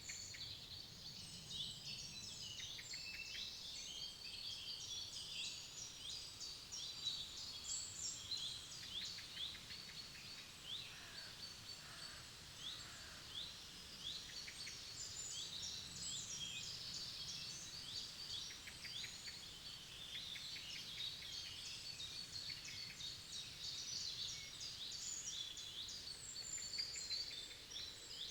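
Several forest songbirds singing and calling together: a dense, continuous mix of high chirps, quick notes and trills, over a faint low background hum of the woods.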